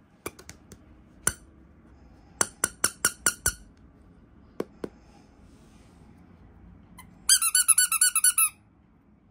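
Squeaky rubber toy squeezed over and over: scattered short squeaks at first, then a quick run of about a dozen squeaks near the end.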